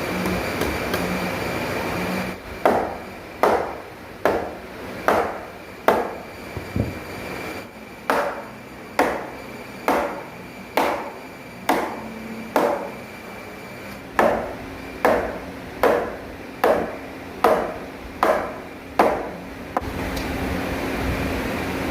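Repeated hammer blows on wood, about one strike a second, in runs with short pauses; each blow rings briefly. A steady machine noise comes before the blows and starts again near the end.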